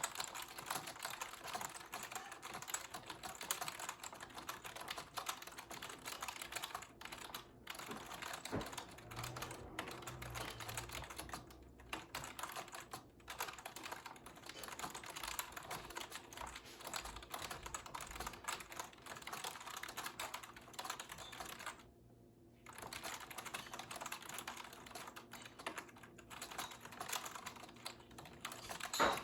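Fast, continuous typing on an iBuyPower membrane keyboard, a dense stream of soft key clicks at about 100 words a minute. There is one short pause about three quarters of the way through.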